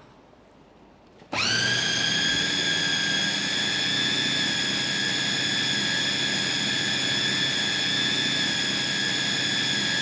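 Electric food processor switched on about a second in, its motor quickly winding up to a steady high whine as the blade grinds tofu, carrot and spring onion into a paste.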